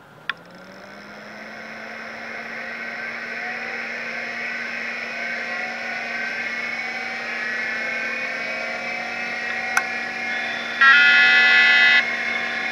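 Machine starting up: a click, then a motor hum that rises in pitch and settles, with higher whines slowly climbing as it spins up. A second click comes near the end, followed by a loud buzzing beep lasting about a second.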